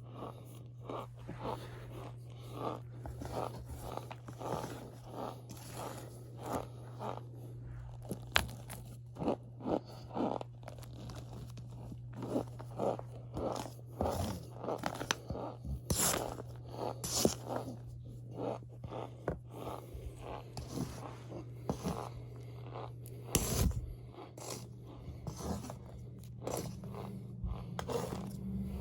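Powdery cornstarch being squeezed and crushed, giving a run of short crunchy squeaks, about one or two a second, some much louder than others.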